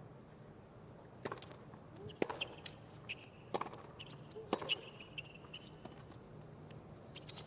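Tennis rally on a hard court: a ball is struck by rackets and bounces, giving sharp pops about once a second, with a few short squeaks of shoes on the court.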